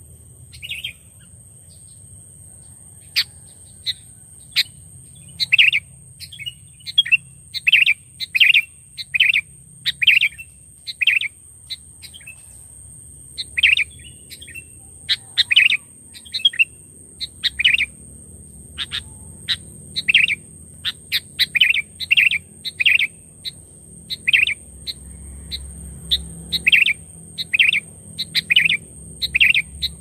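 Sooty-headed bulbul (kutilang) singing in short, sharp chirps, about one or two a second with a brief pause midway, a song filled with prenjak-style calls.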